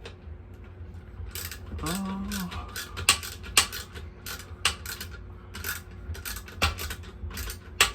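Hand ratchet wrench clicking in irregular runs as it is worked back and forth on a nut that will not come loose, with a few louder metal clinks.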